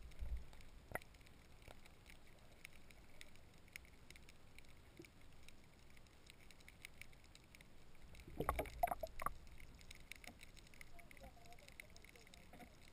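Faint, muffled water sloshing picked up by an underwater camera in its waterproof housing. A short burst of knocks and splashing comes about eight and a half seconds in.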